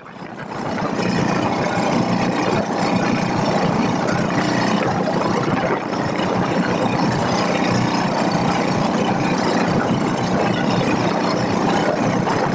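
Engine of a motorized outrigger boat (bangka) running steadily underway through choppy sea. It fades in over the first second, then holds an even drone.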